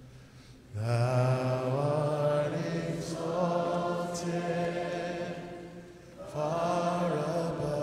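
Slow live worship singing: a man's voice holding long notes at the microphone over acoustic guitar, with a short pause before a new phrase begins about six seconds in.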